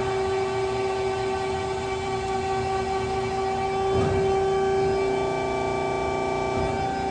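Schwarze-Robitec SW-60MW CNC tube/mandrel bender running with a steady machine whine of several tones. The sound shifts and briefly gets louder about four seconds in, and changes again near the end, as the machine moves through its cycle.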